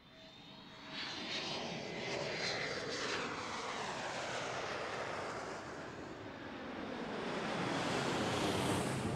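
Aircraft flying past, laid over the animation as a sound effect: the engine whine falls in pitch over the first few seconds, then the engine noise swells to its loudest near the end.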